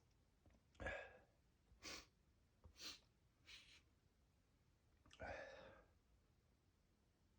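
A man's faint breathing between sneezes: short breaths about a second apart, then a longer breath a little after five seconds in.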